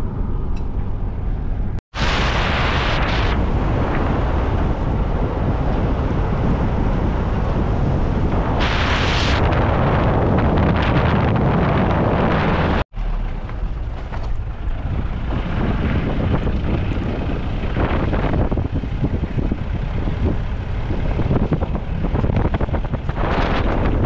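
Road and engine noise of a moving car heard from inside, with wind rushing over the microphone and a brief louder gust of hiss near the middle. The sound cuts out abruptly twice, about two seconds in and again about halfway through.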